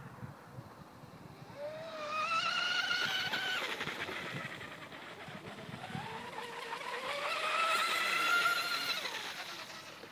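High-speed electric RC racing boat with an LMT 1535/7 brushless motor on a 4S LiPo and a 34 mm brass propeller, running at speed on the water. Its high-pitched motor whine rises in pitch and swells twice: briefly about two seconds in, then again from about six seconds, loudest near eight seconds before fading.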